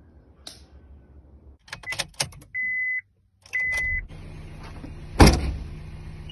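Car interior sounds: a few sharp clicks and clunks, then two short electronic beeps. After the second beep the car's engine is running with a low steady hum, and there is one loud knock about five seconds in.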